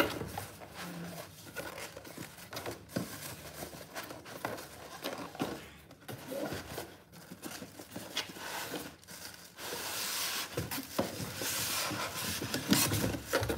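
Cardboard box packaging being handled: scattered scrapes and knocks of the flaps being folded back and pulled open, then a few seconds of crinkling plastic wrap about ten seconds in.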